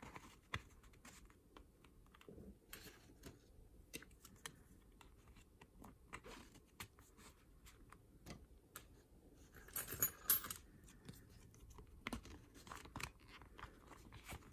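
Plastic gift cards sliding into and out of the card slots of a small leather wallet: soft scrapes and many small clicks and taps, with a louder rustle of cards about ten seconds in.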